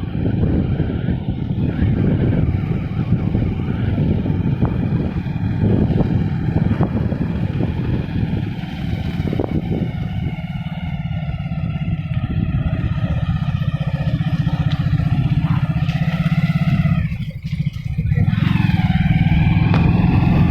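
A vehicle engine running steadily. It dips briefly about three-quarters of the way through, then picks up again louder.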